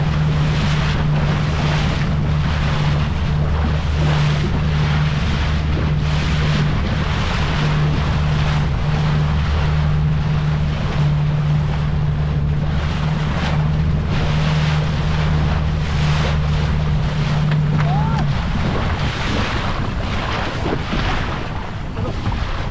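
A small leisure boat's engine runs at a steady low hum under way, with water rushing past the hull and wind buffeting the microphone. The engine hum drops away about eighteen seconds in, leaving wind and water.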